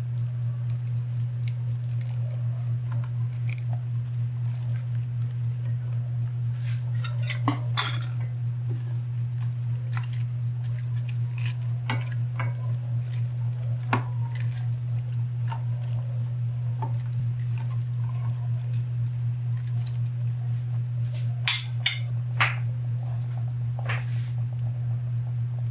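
A metal spoon clinking and scraping against a cooking pot a handful of times as cabbage leaves are pushed down into beef stew, over a steady low hum.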